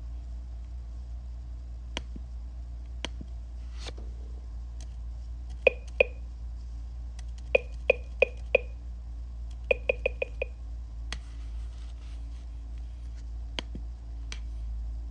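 Steady low hum with a few scattered clicks, then short, sharp pitched taps in groups: two about six seconds in, four a couple of seconds later, then a quick run of five.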